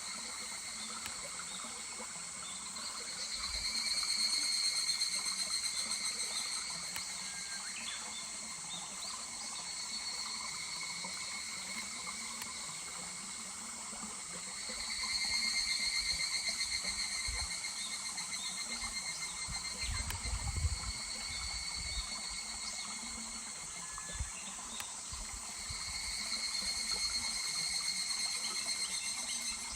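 Higurashi (evening cicadas) calling: pulsing trills that swell up and fade away three times, about every eleven seconds, over the steady rush of a small stream. A brief low bump comes about two-thirds of the way through.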